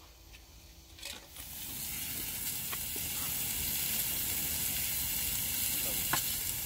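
Slabs of pork belly sizzling in a hot black grill pan over a gas burner: a steady hissing fry that comes up about a second and a half in, with a couple of light clicks.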